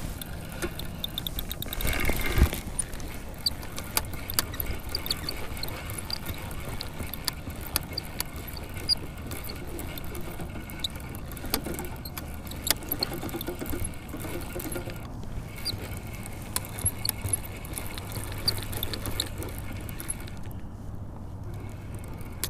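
Scattered light clicks and brief squeaks from kayak and fishing gear handled on the water, with a swell of wind noise about two seconds in and a steady low hum in the last part.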